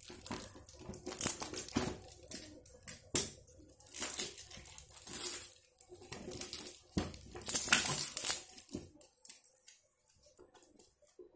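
Hands tearing and crinkling the tape-wrapped paper packaging of a parcel, in irregular bursts of ripping and rustling that grow fainter near the end.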